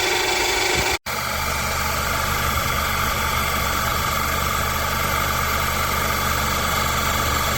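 A motor running steadily, a low hum under a constant whine, cutting out for an instant about a second in and then carrying on unchanged.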